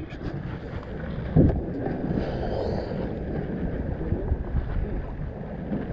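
Wind buffeting the microphone over water slapping against a small boat's hull, with one short thump about a second and a half in.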